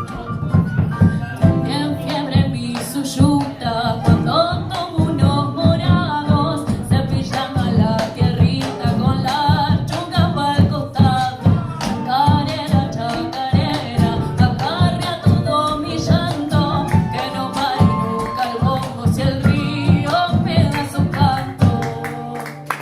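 Latin American folk-style music: singing over plucked guitar and a steady percussive beat. It stops just before the end.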